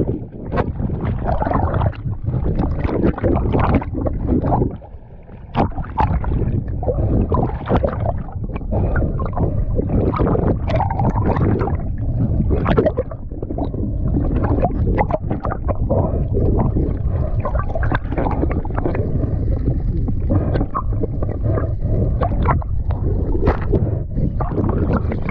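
Splashing and bubbling water around a submerged camera as a diver enters the water and swims, with many short knocks and crackles over a steady low rumble. It drops briefly quieter about five seconds in.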